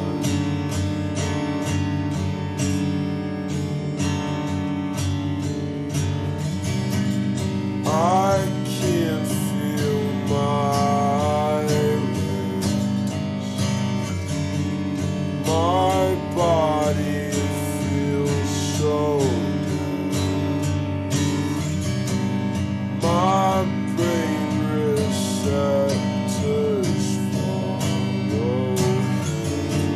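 Slowed-down acoustic guitar song: the guitar is strummed steadily throughout, with a sliding melody line coming in for a second or two every few seconds.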